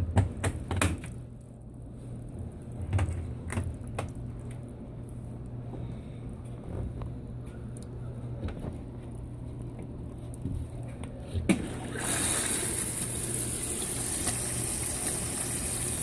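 Consul 16 kg top-load washing machine starting its cycle: a low steady hum with a few clicks, then a knock and, about twelve seconds in, a sudden steady hiss of water spraying into the drum as it begins to fill.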